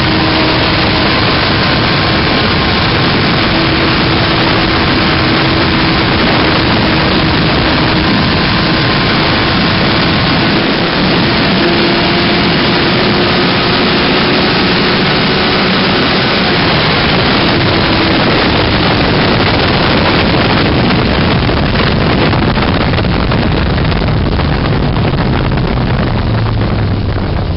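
Sport motorcycle engine held at high revs at speed, heard under a loud rush of wind on the microphone; its pitch creeps slowly upward, and near the end the revs fall away as the bike slows.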